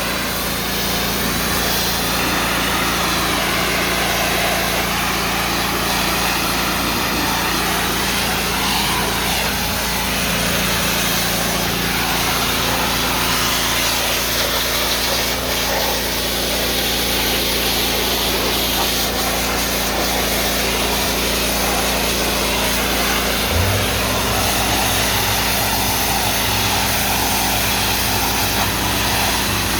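The Kohler gas engine of an Easy Kleen 4000 psi hot-water pressure washer runs steadily under load, with the high-pressure spray hissing as it blasts grime off a surface.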